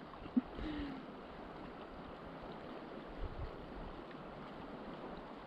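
Steady rush of a shallow, clear river running over a pebble bed, with a couple of faint low bumps.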